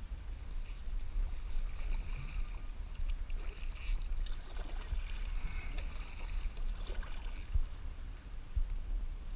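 Kayak paddling on calm water: soft splashing and trickling of the paddle blades. A steady, uneven low rumble of wind buffets the camera's microphone.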